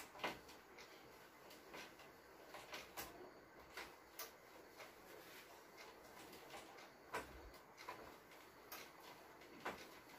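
Faint wiping of a whiteboard with a cloth, with scattered light clicks and knocks at irregular intervals.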